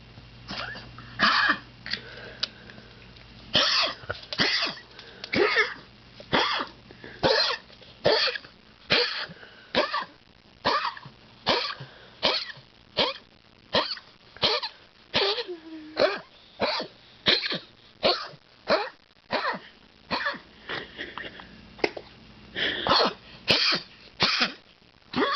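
A sick dog coughing and hacking over and over, about one harsh cough a second with a few in quick pairs, as she struggles to breathe; she has a lump believed to be cancer.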